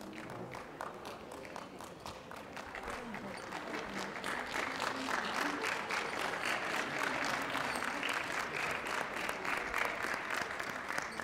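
Ringside audience clapping steadily, growing louder about four seconds in as the show dogs are gaited round the ring.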